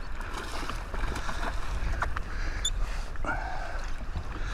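A hooked redfish thrashing and splashing at the water's surface beside a personal watercraft, over a steady low rumble of wind on the microphone and lapping water.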